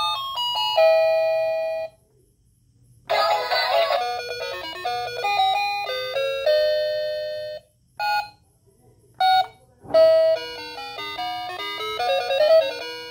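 Toy baby phone's electronic sounds as its light-up keys are pressed: short beeping synthesized melodies, a few single beeps about eight to ten seconds in, with brief silent gaps between the tunes.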